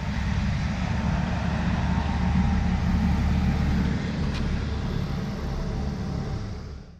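A motor vehicle running steadily: a deep, even rumble with road-like noise above it, fading in and fading out.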